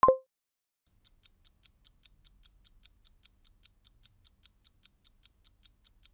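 A short chime, then a countdown-timer sound effect: stopwatch-style ticking, light high ticks at about five a second, starting about a second in.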